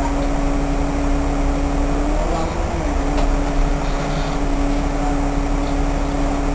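Cabin noise inside a Solaris Urbino 8.6 city bus: a steady low rumble with a constant humming tone that wavers briefly a little after two seconds.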